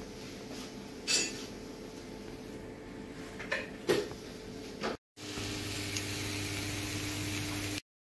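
A few light clinks and knocks of dishes being handled, the loudest about a second in, over a low steady hum. After a brief cut about five seconds in, a steadier hum with a hiss takes over.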